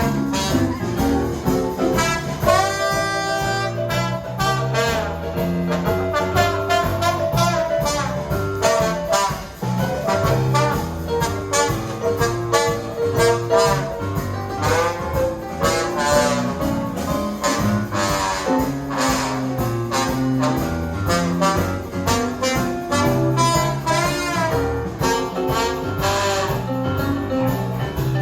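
Jazz band playing, with saxophone and brass lines over a walking low bass part and a steady drum beat.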